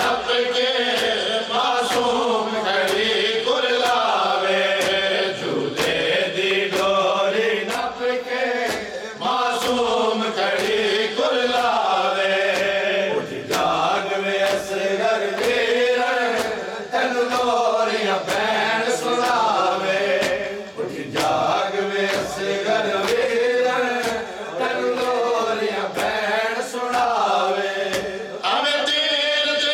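Men's voices chanting a noha lament together, to a steady beat of open hands striking chests (matam).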